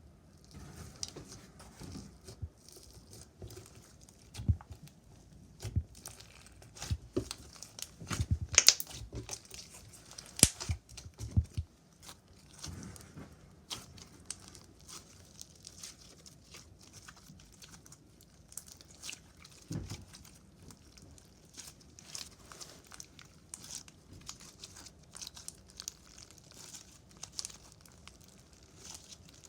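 Slime being squished, poked and stretched by hand: a run of crackling clicks and pops, busiest and loudest in the first half.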